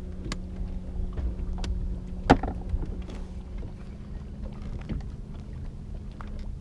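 Sounds of a small fishing boat: low wind rumble on the microphone and a steady low hum, with scattered light clicks of fishing gear being handled and one sharp knock a little over two seconds in.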